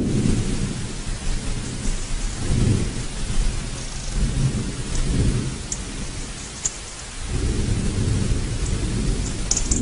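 Mount Etna erupting in a lava fountain: a deep rumbling that comes in surges, easing off past the middle and building again, over a steady hiss, with a few sharp cracks in the second half.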